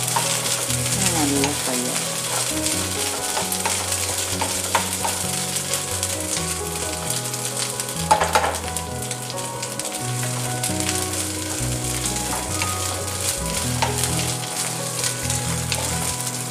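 Shallots, curry leaves, green chillies and fennel seeds sizzling in oil in a non-stick kadai, with a steel spatula stirring and scraping through them in small clicks. There is a louder clack about halfway through.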